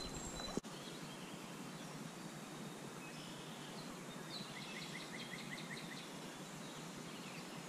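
Faint creekside ambience: a steady soft hiss with small birds calling, including a quick run of about seven short chirps in the middle. A single sharp click sounds under a second in.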